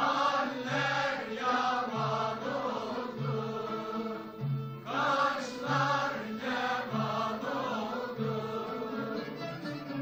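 Mixed choir singing a Turkish folk song with violins and a bağlama (saz), over a low note that repeats about every 0.7 s.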